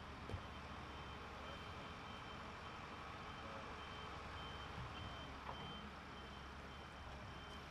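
A heavy vehicle's reversing alarm beeping in an even on-off rhythm over a steady low background rumble, with a brief knock just after the start.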